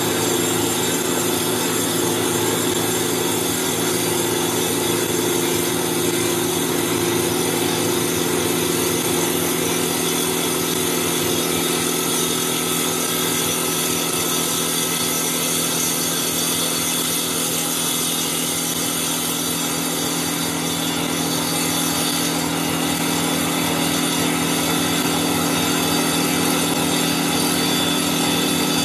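CNC wood lathe turning a baseball bat on its finishing pass, a circular saw blade cutting the wood blank as it spins. It runs steadily, a mix of motor tones over the noise of the blade cutting wood.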